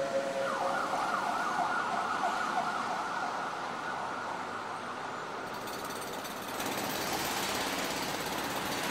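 A siren sounding over a steady rushing noise; the rushing grows brighter and louder about five and a half seconds in.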